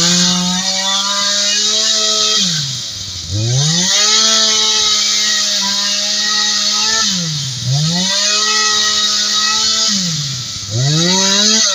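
Two-stroke chainsaw running at full throttle in long, steady stretches, dropping off the throttle briefly three times and revving straight back up.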